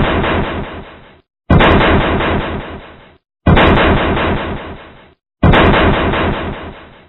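Heavy 'boom' ending sound effect: a sudden deep impact hit that dies away over about a second and a half, repeated about every two seconds, three fresh hits after the fading tail of an earlier one.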